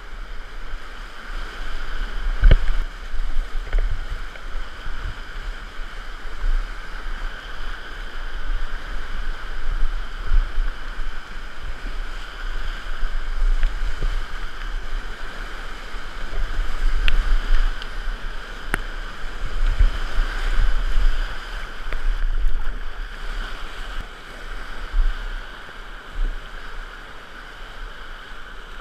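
Whitewater rapids rushing loudly around a kayak as it runs the rapid, with a steady low rumble. Paddle strokes and splashes knock against the boat now and then, the sharpest about two and a half seconds in.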